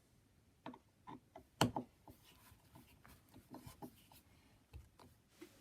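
Faint scattered clicks and light rubbing of metal parts being handled on a lopper head, with one sharper click about one and a half seconds in.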